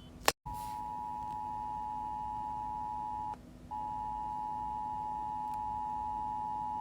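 Emergency Alert System two-tone attention signal: a steady, unwavering dual-tone beep that starts just after a click, breaks off briefly a little past three seconds in, then resumes. A faint low hum runs underneath.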